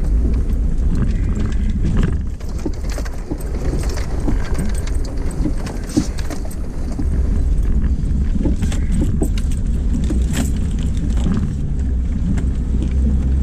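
Jeep engine running with a steady low rumble as it crawls over a rutted dirt trail, getting louder about halfway through, with clanks and rattles from the body and loose gear over the bumps.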